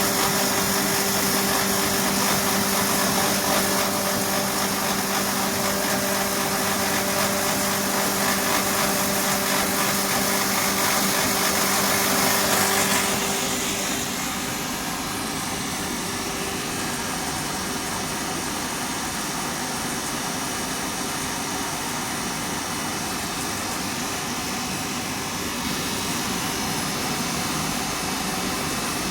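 Herb powder milling machine running, a loud steady whir of grinding. About 13 seconds in a steady low hum drops out and the sound turns a little quieter.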